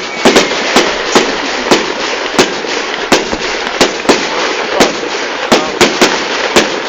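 Fireworks going off in a rapid string of sharp bangs, about two a second at uneven spacing, over a steady noisy hiss.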